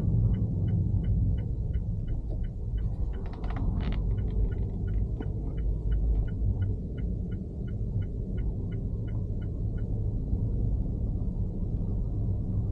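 Gale-force wind buffeting the microphone in a low rumble, with a brief noisy burst about three to four seconds in. A faint, regular ticking, about three ticks a second, runs beneath it and stops about ten seconds in.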